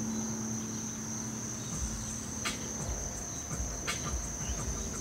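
Insects trilling in the background in one steady, unbroken high tone. A few sharp clicks come in from about halfway through.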